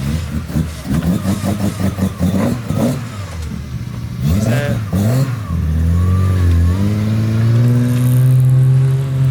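Car engine pulling away, its pitch climbing steadily over the last few seconds as it accelerates, after a brief rev about halfway through.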